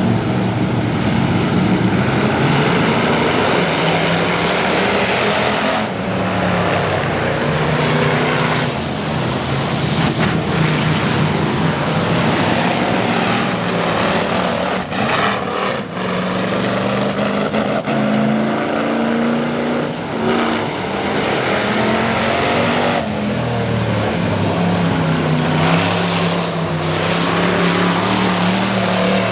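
Race car engines running hard during a short-track race, several at once. Their notes rise and fall as the cars accelerate and lift around the track.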